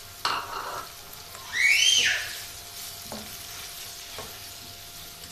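Chicken, onion and freshly added chopped tomato sizzling in a non-stick wok while a plastic spoon stirs them, with a light tap or two against the pan. About one and a half seconds in there is a short, loud high squeal that rises and falls.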